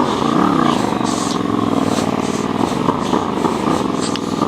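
Yamaha MT-07's parallel-twin engine running at low speed, its pitch rising and falling briefly near the start before settling into a steady run.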